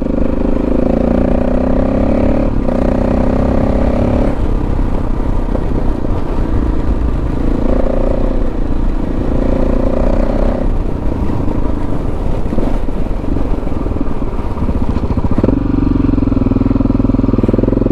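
KTM 640 Adventure R's single-cylinder engine running on the move, its note shifting several times with throttle and gear changes, over a steady low rush of wind and road noise.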